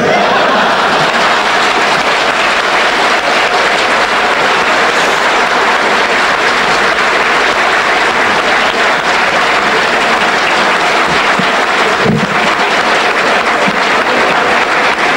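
Audience applauding, a steady, even clapping that holds at the same level throughout.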